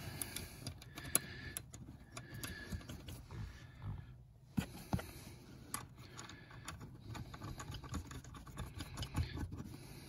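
Quiet, irregular small metallic clicks and scrapes as a seat-mounting bolt is fitted and turned by hand into a car seat rail, with a few sharper ticks.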